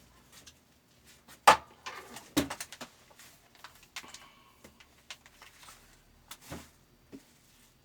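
A series of irregular clicks and knocks, as of small parts being handled, with two loud knocks about a second and a half in and again a second later.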